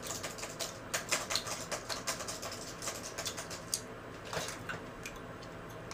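Typing on a laptop keyboard: quick, irregular key clicks, busiest in the first few seconds and then thinning to a few taps.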